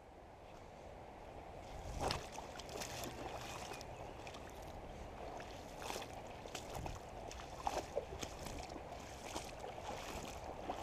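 Shallow creek water running over a stony riffle, a steady rush that fades in near the start, with a few scattered knocks and clicks about 2, 6 and 8 seconds in.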